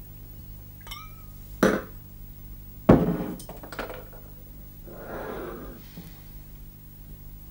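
Glassware and a bottle handled on a hard bar counter: a light ringing glass clink about a second in, then two hard knocks of something set down, the second the loudest, followed by a few small clinks. A soft rushing sound follows about five seconds in.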